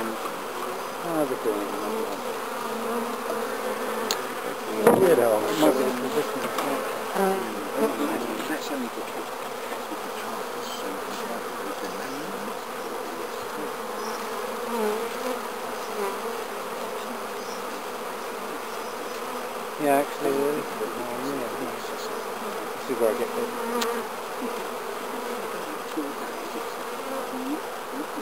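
Honeybees buzzing around an open hive as its frames are lifted out: a steady hum from the colony that swells louder a few times, most of all about five seconds in and again around twenty seconds in.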